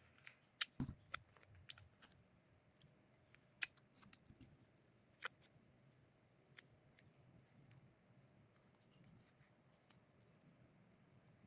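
Faint, scattered small clicks and snips of a piece of tape being handled and stuck around a wire as a label, busiest in the first five seconds and sparse after.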